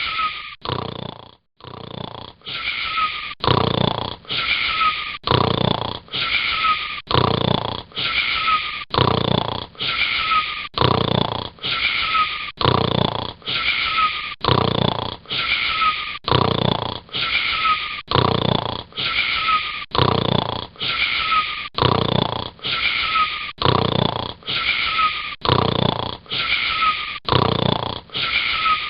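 Snoring with a whistling wheeze on each breath. The strokes repeat evenly and identically about once a second, with a brief break about a second in.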